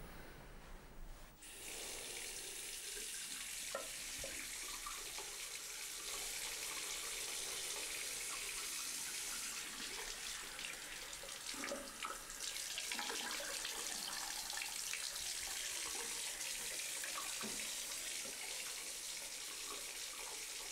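Bathroom washbasin tap turned on about a second and a half in, water running steadily into the sink with scattered small splashes.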